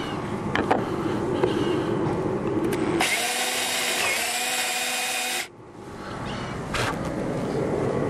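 Cordless drill boring a bolt hole through the boat deck with a bit one size larger. The drill runs louder and higher from about three seconds in, then stops abruptly about five and a half seconds in.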